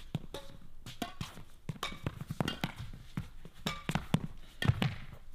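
Badminton rally in a sports hall: irregular sharp smacks of rackets hitting the shuttlecock, with footsteps and brief shoe squeaks on the court floor.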